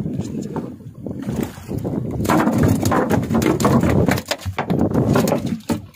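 Wind buffeting the microphone over sea noise aboard a small open fishing boat. From about two seconds in there is a dense run of knocks and slaps.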